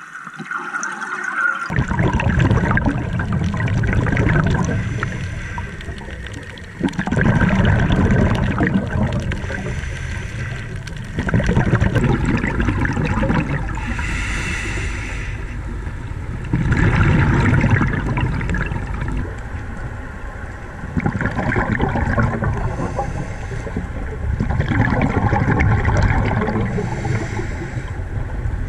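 Scuba diver's exhaled bubbles gushing past the underwater camera housing, one rush of bubbling every four to five seconds with each breath, quieter between breaths.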